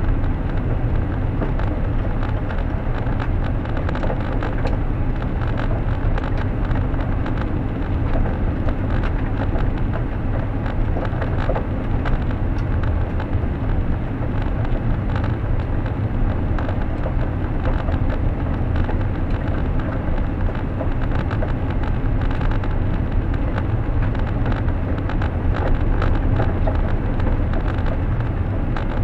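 A car driving at a steady pace: constant low road and tyre rumble with many faint ticks throughout, picked up by a dash camera.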